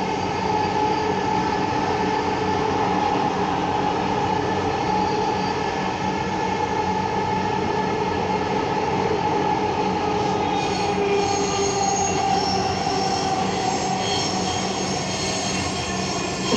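Dhaka Metro Rail train running between stations, heard from inside the carriage: a steady rumble of wheels on the rails under the hum of the electric drive, with several steady tones. From about ten seconds in, higher whining tones join.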